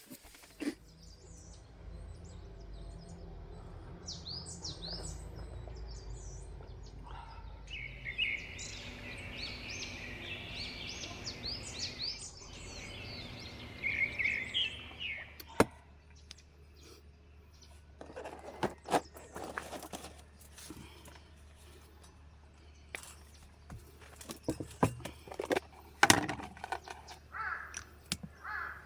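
Small birds chirping and twittering in rapid high, curved notes, densest in the middle. After that come scattered sharp clicks and knocks over a steady low hum.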